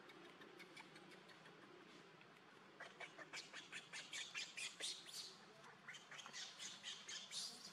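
Baby macaque giving a rapid run of short, high-pitched squeaking cries, several a second, starting about three seconds in, the distress calls of an infant pushed away by its mother.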